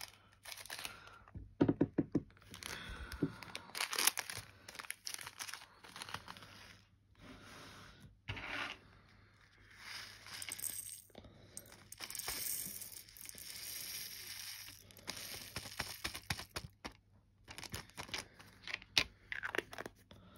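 Small plastic packets crinkling and tearing as they are opened and handled, with scattered clicks and taps.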